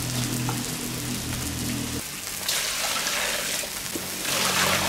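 Water poured into a stainless steel basin of scallions, chilies and cilantro, in two splashing bursts, over a steady hiss of small fish frying in a pan.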